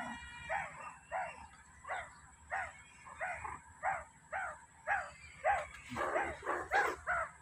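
Meerkats giving a run of short, high calls, about two a second, each rising and falling in pitch. Near the end the calls come louder and closer together, several overlapping.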